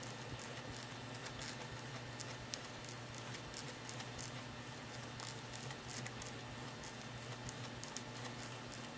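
Faint scratching with scattered light ticks from a round threading die in a hand die stock being unscrewed off a freshly cut brass screw thread, over a low steady hum.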